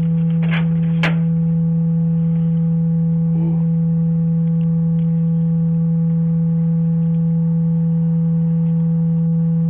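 Steady, loud electrical hum picked up by a doorbell camera's microphone, one low buzzing tone with fainter higher tones above it. A couple of sharp clicks come in the first second.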